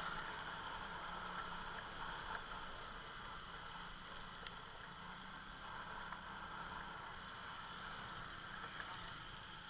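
Steady engine drone and road noise of a moving motor scooter, with some wind on the microphone.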